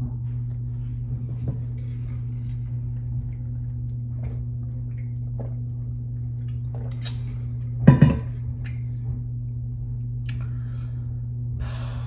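Handling and drinking noises from a large insulated water bottle, with a single short knock about eight seconds in, over a steady low electrical hum.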